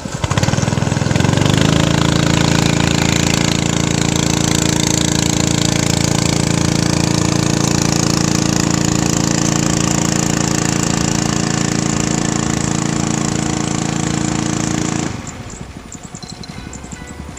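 A loud engine running close by: its pitch rises about a second in, then holds steady until it cuts off suddenly near the end.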